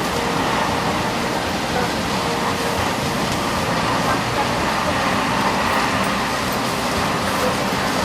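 Steady running noise of a KTM ETS electric train travelling at speed, heard inside the passenger coach: an even rumble and hiss with no breaks.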